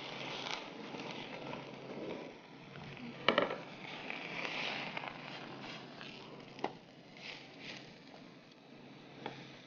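Oil sizzling and crackling on a hot tawa as a frozen paratha fries, with a few sharp clinks of a utensil against the pan: a cluster about three seconds in and single ones later.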